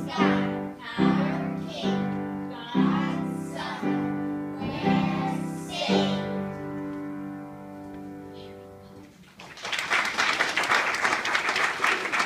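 Children's choir singing a run of notes that ends on a long held note fading away, then applause breaking out about nine and a half seconds in.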